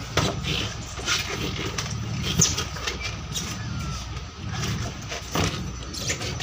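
A boat's engine runs steadily with a low rumble, mixed with scattered knocks and clatter from dive gear being handled on deck.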